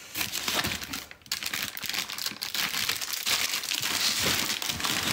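Clear plastic bags crinkling as hands rummage through a cardboard box of bagged shoes, with a brief lull about a second in.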